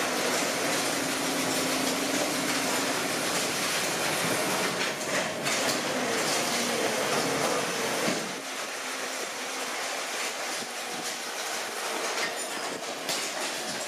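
Paper-tube factory noise: a steady rumbling mechanical clatter that drops to a lighter, thinner noise about eight seconds in.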